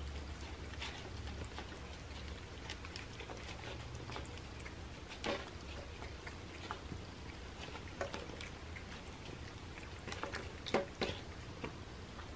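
Cats eating wet canned fish food off paper plates: soft, irregular chewing, licking and lip-smacking clicks. A few sharper clicks come about halfway through, and two close together near the end, over a low steady hum.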